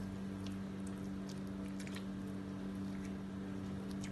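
Faint wet squishing and squelching as hands squeeze and mash peeled ripe mangoes into pulp on a steel plate, over a steady low hum.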